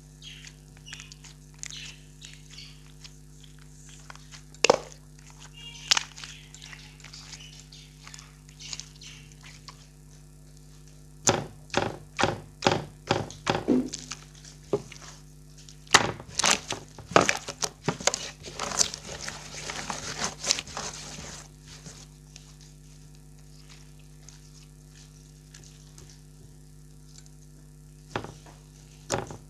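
Clear slime being pressed and folded by hand, giving sharp clicks and pops. The clicks are scattered at first, come in two quick runs in the middle, then thin out. A steady low hum runs underneath.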